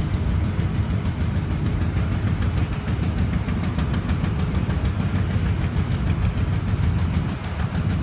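Diesel engines of Link-Belt mobile cranes running steadily while holding a suspended flare stack, a continuous low rumble with a slight dip near the end.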